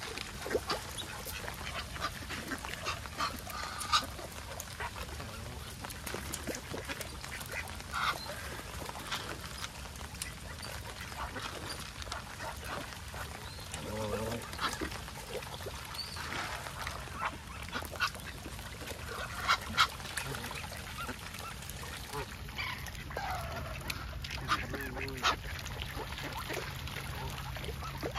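Geese and ducks calling on and off over a steady background hiss, with a few sharp clicks scattered through.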